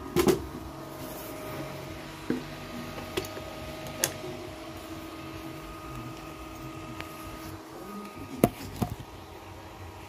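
Handling noise: a few sharp knocks and clicks, the loudest right at the start and another about eight seconds in, over a faint steady hum.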